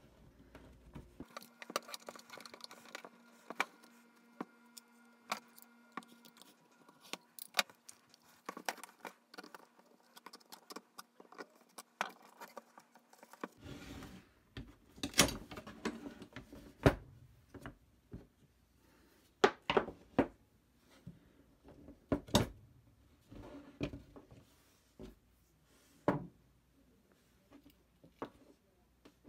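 Plastic clamshell housing of a Cat Pumps hot-water pressure washer wand being pried and pulled apart with a flathead screwdriver: quiet handling at first, then scattered sharp clicks and snaps from about halfway through as the halves separate.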